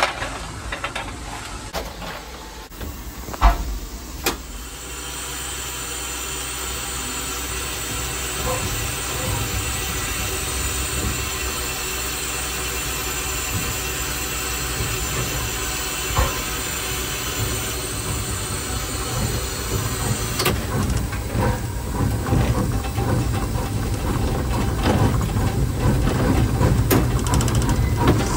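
Steam locomotive hissing steam steadily, with two sharp knocks about four seconds in. Later a low, uneven sound builds up and grows a little louder near the end.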